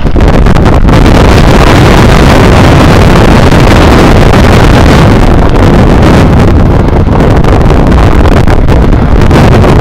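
Strong wind buffeting the microphone: a loud, steady rumble of noise, heaviest in the low end, with no let-up.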